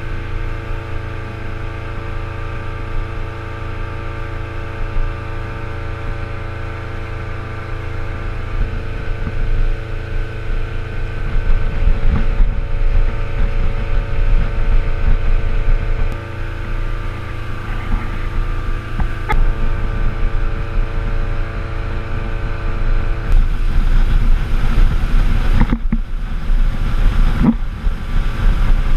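Motorboat engine running steadily at speed while towing a water-skier, a droning hum over the rush of the wake. The noise grows louder and rougher in the second half.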